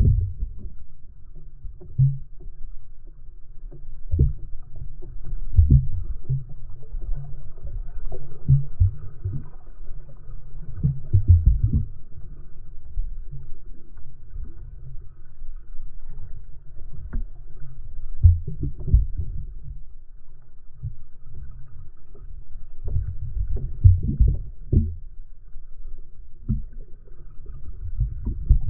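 Muffled underwater sound from a submerged camera: a low rumble of moving water with irregular dull knocks every second or two as the water slops against the housing.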